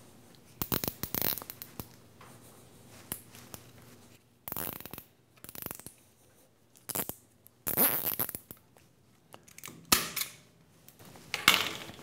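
Nylon zip ties ratcheting as they are pulled tight around a bundle of wires, in about five short bursts of rapid clicks, with cables being handled in between.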